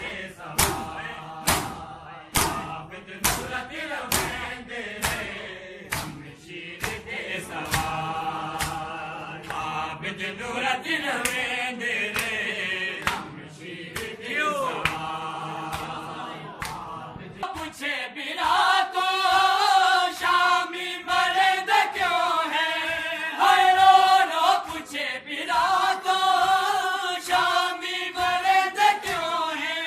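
Men chanting a Punjabi mourning lament (noha) in chorus over a steady beat of open hands striking bare chests in matam. The chest strikes are loudest near the start, at about one and a half a second, and the chanting grows louder and fuller past the middle.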